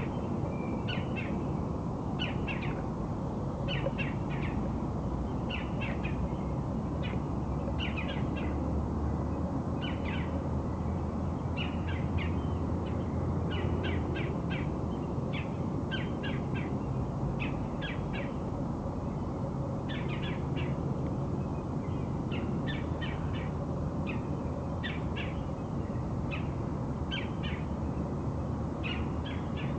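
A bird calling over and over: short, harsh notes in quick clusters of two to four, repeating every second or two, over a steady low rumble.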